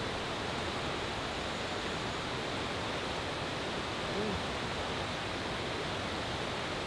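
Steady rush of a river running over rocks in a rapid. A short hummed 'mm' from a person comes about four seconds in.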